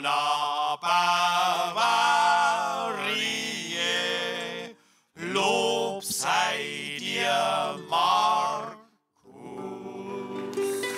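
Two men's voices chanting in harmony in the manner of a church psalm: long held, wavering sung phrases in three stretches with brief breaks between them, the last one quieter.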